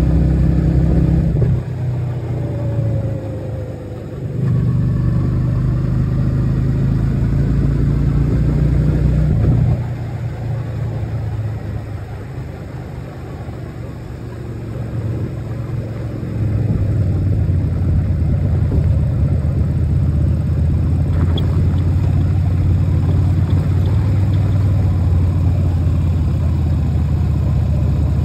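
Motorcycle engine running while riding along. The engine note drops away twice, briefly about two seconds in and for several seconds from about ten seconds in, then comes back up to a steady pull.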